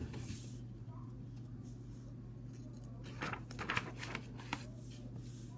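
Pages of a picture book being turned and smoothed down by hand: a brief paper rustle at the start, then a cluster of crisp paper rustles and rubs about three to four seconds in.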